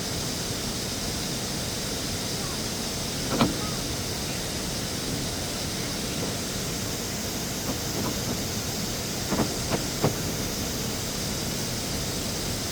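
Steady rushing noise, with a sharp knock about three seconds in and a few quieter knocks and clicks around nine to ten seconds.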